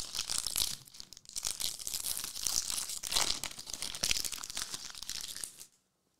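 A foil trading-card pack wrapper crinkling and tearing as it is ripped open and handled. The crackling cuts off suddenly near the end.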